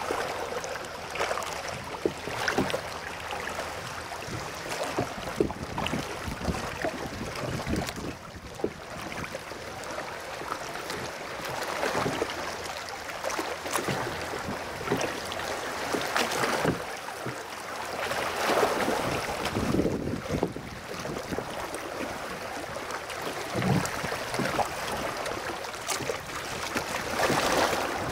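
Rowboat oars dipping and pulling through calm seawater, with splashing and lapping of water around the hull and shoreline rocks and scattered small clicks and knocks. The water sound swells now and then.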